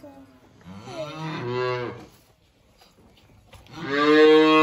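Holstein calves mooing: two drawn-out calls over a second long each, the second louder, near the end. Hungry calves calling for milk at bottle-feeding time.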